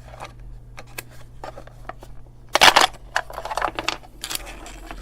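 Plastic case of a small battery LED message board being handled and turned over: scattered light clicks and knocks, with a louder scuffing clatter a little past halfway.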